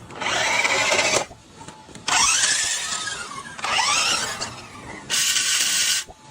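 Four bursts of mechanical whirring, like a small power tool or drill, each about a second long; in two of them the pitch dips and then rises again.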